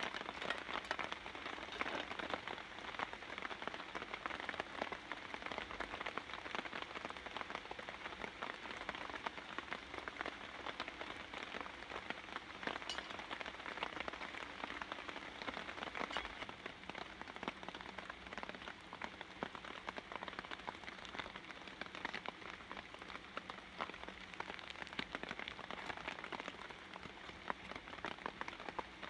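Steady rain falling, the many close drops pattering without a break.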